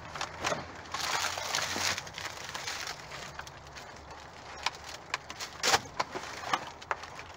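Cardboard boxes and plastic-wrapped frozen food packages being lifted and shuffled by gloved hands inside a steel dumpster: a burst of rustling and scraping about a second in, then a string of sharp knocks and taps.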